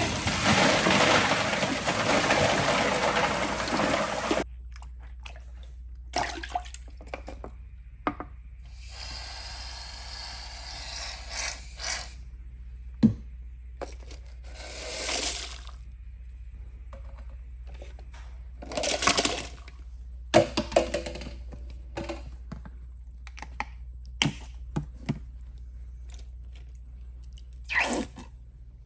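Toilet flushing, with loud rushing water that cuts off abruptly about four seconds in. After that come scattered short splashy noises and clicks over a faint low hum.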